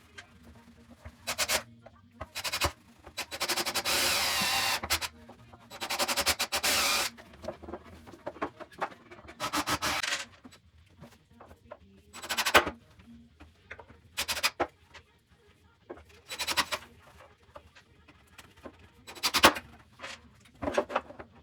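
Power driver driving screws to fix metal feet to the underside of a cabinet: two runs of a second or more with a rising whine, then short bursts, clicks and knocks as the parts are handled.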